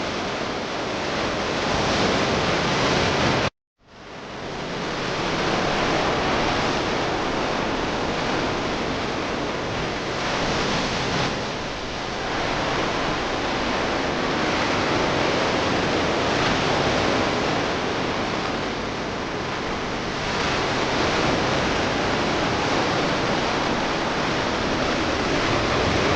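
Sea waves breaking and washing up on a beach: a steady rushing that swells and ebbs every few seconds. The sound cuts out for a moment about four seconds in, then fades back.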